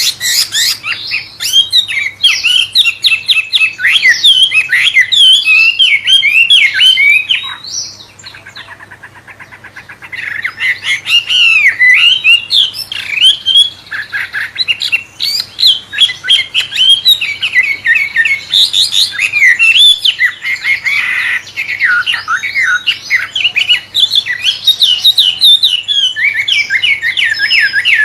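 A wambe songbird singing rapid, varied phrases of chirps and sweeping whistles in a murai-like style, with a quieter, fine buzzing trill for a couple of seconds about eight seconds in.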